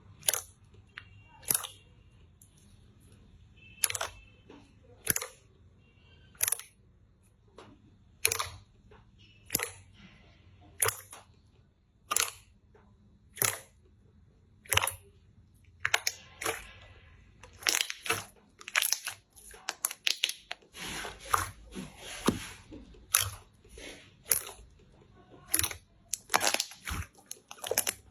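Slime being pressed and worked by hand, giving sharp clicking pops, about one a second at first, then coming faster and in clusters from about halfway through.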